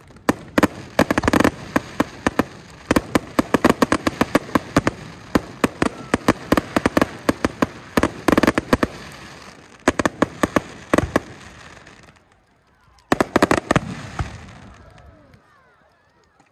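Aerial fireworks going off in rapid volleys of sharp bangs and crackles, easing off about twelve seconds in, then one more short volley.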